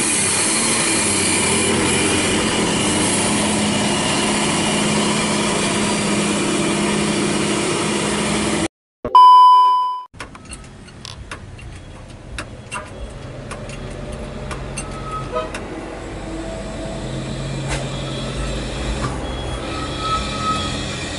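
A dump truck's diesel engine running steadily as the truck drives past close by. The sound then cuts off, and a loud electronic beep of about a second follows. After it comes a quieter stretch of scattered clicks and knocks, with an engine running in the background and growing louder toward the end.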